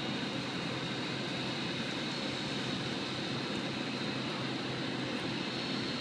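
Tugboat diesel engines and their propeller wash churning the water: a steady low rumble with a rushing hiss.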